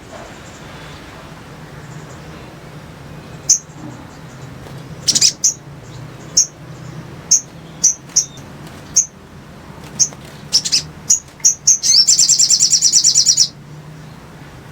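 Sogon (little spiderhunter) calling. It gives single sharp, high chips at irregular intervals, then a fast chattering trill lasting about a second and a half near the end.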